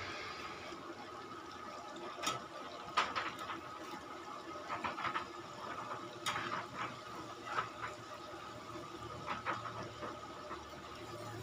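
Chicken pieces deep-frying in a wok of hot oil, a steady sizzle, in their second frying. A metal ladle clinks against the wok about ten times as the pieces are stirred.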